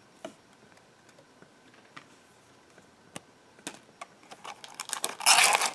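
A few light clicks and taps of trading cards being handled, then a foil card-pack wrapper crinkling, loud and dense, in the last second or so as the next pack comes out of the box.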